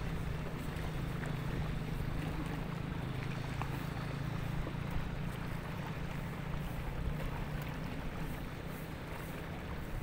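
An engine running steadily with a low, even hum, under a constant rushing noise of wind.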